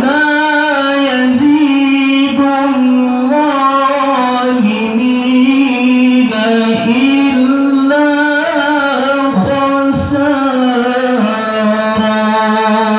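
Male Quran reciter chanting a long, high, ornamented phrase of tilawah through a handheld microphone. The voice starts abruptly, holds a high pitch with wavering turns and short dips almost without a break, and eases off near the end.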